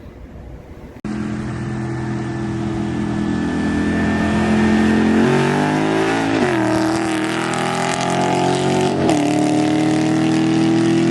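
Ford 5.0 Coyote V8 accelerating hard, its pitch climbing through the revs, with two upshifts about six and nine seconds in, each a brief drop in pitch before it pulls again. A quieter stretch of engine sound in the first second cuts off abruptly.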